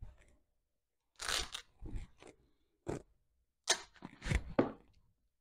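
Handling noise while the welder's side panel is being worked loose: a handful of short scrapes and clunks a second or so apart, the loudest near the end.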